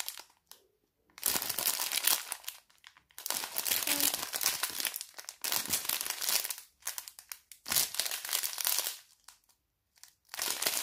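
Small clear plastic zip bags of diamond-painting drills crinkling as they are handled, in several spells of a second or two with short quiet gaps between.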